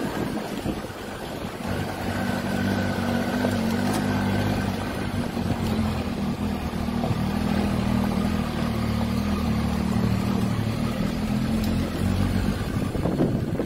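Motorcycle engine running steadily, its note clearer from about two seconds in and dropping away near the end, with wind noise on the microphone.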